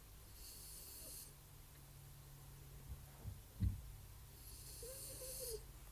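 French bulldog snoring: two long hissing snoring breaths about four seconds apart, the second with a faint whistling tone in it. A short low thump falls between them.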